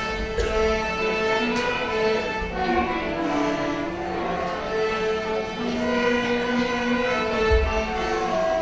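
Student string ensemble playing a slow piece in sustained, bowed notes. There is a brief low bump near the end.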